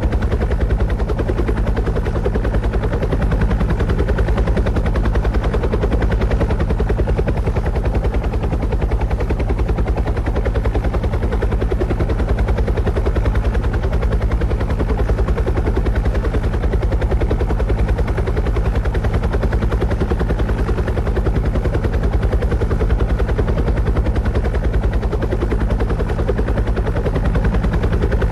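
Helicopter rotor chop: a fast, even beating with a low drone, steady and unchanging throughout.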